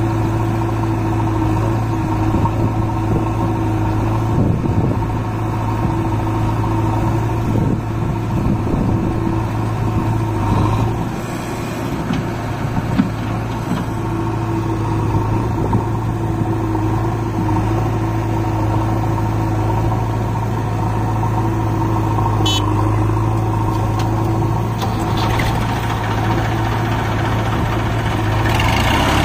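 Diesel engines of a Massey Ferguson 7250 DI tractor and a JCB backhoe loader running steadily at idle, a continuous low hum whose note shifts about eleven seconds in. Near the end there is more hiss as the loader tips soil into the trolley.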